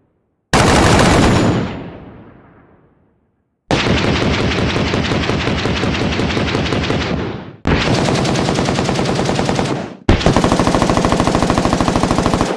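AK-47 assault rifle firing on full automatic: a short burst about half a second in that rings out and fades over a couple of seconds, then three long bursts of rapid fire, the last one cut off sharply at the end.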